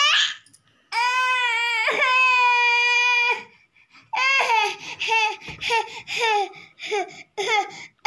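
A toddler's high-pitched voice: a short rising squeal, then about a second in a long held squeal lasting some two seconds, and after a pause a run of short yelps, about two a second.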